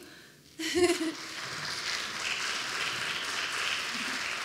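Audience applauding in an auditorium, starting about a second in just after a brief spoken word, then going on steadily.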